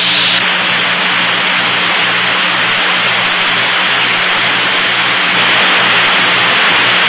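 Steady hiss of an open radio communications loop between transmissions, with a low electrical hum under it.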